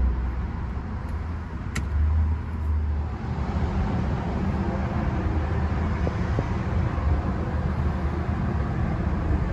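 Steady low rumble of a vehicle engine running, with a short click about two seconds in; the sound broadens and grows fuller from about three seconds in.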